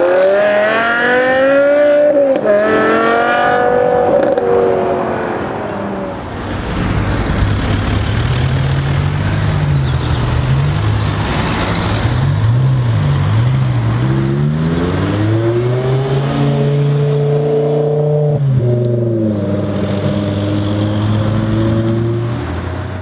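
BMW E60 M5's 5.0-litre V10 through an Eisenmann Race aftermarket exhaust, accelerating hard with a rising note, a brief dip at a gear change about two seconds in, then rising again. After that it runs at low revs with small throttle blips, rises and holds for a couple of seconds, and drops back to a steady low note.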